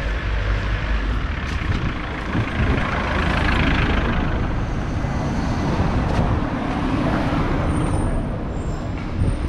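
Street traffic: a steady low engine rumble, with a vehicle driving past that is loudest about three to four seconds in.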